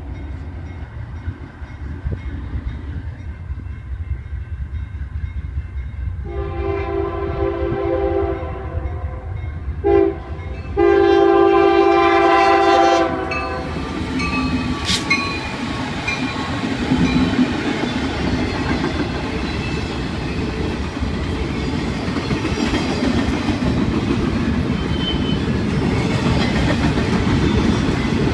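Low rumble of an approaching diesel train, then the Union Pacific EMD SD70M locomotive's air horn sounds a long blast, a short one and another long one. The locomotives go by and a fast train of double-stack container cars follows, its wheels clicking over the rail joints, growing louder toward the end.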